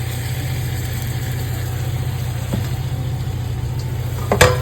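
A steady low mechanical hum with a fine, even pulse, joined near the end by one sharp metallic clank, like a utensil striking the pan.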